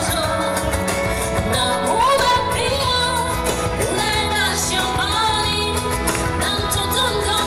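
A woman singing into a microphone over instrumental backing music, her voice gliding between held notes.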